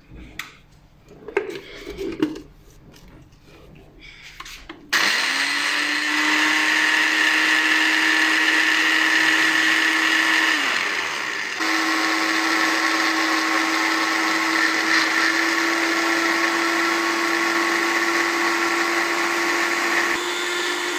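Countertop blender crushing tennis biscuits into crumbs. After a few brief knocks, the motor spins up about five seconds in and runs steadily, cuts out briefly near the middle, then starts again and keeps running.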